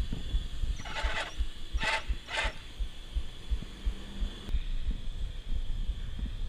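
Wind buffeting and rumbling on the action camera's microphone while a BMX bike rolls along a paved road, with the tyres' road noise beneath. Three short bursts of hiss-like noise come in quick succession about one to two and a half seconds in.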